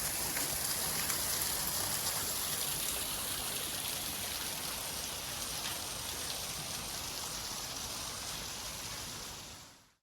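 Garden waterfall splashing steadily, a continuous rush of falling water that fades out at the very end.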